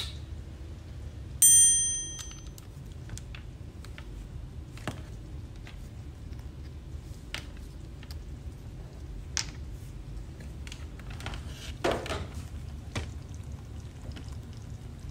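A bright electronic chime rings once about a second and a half in and fades over about a second, over a steady low hum. After it come scattered light clicks and taps, with a louder thunk near the end, as a metal tube of tomato paste is handled, opened and squeezed.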